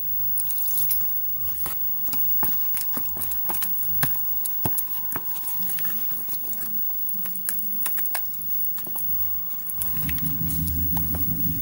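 Silicone spatula stirring a thick flour batter in a plastic tub: irregular wet clicks and squelches as the batter is folded and the spatula knocks the sides. A low steady hum comes in near the end.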